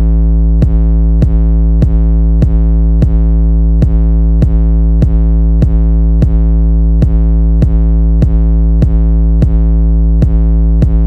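Electronic background music: a held low note with many overtones under a steady, even click beat of a little under two beats a second.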